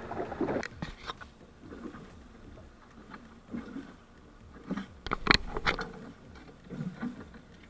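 A few sharp knocks and slaps from a freshly caught dorado (mahi-mahi) being handled on a boat's deck: a couple about a second in, then a quick cluster a little past the middle.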